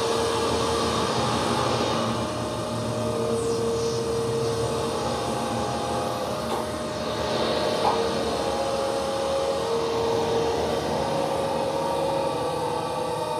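Sound-art drone: a dense rushing noise with steady, pure-sounding tones at several pitches that come and go, each held for a second or two.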